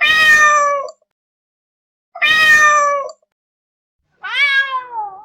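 Domestic cat meowing three times, each call about a second long; the first two are alike and the third slides down in pitch.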